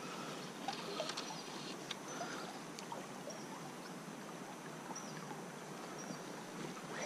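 Shallow creek water flowing as a steady, faint rush, with a few faint ticks.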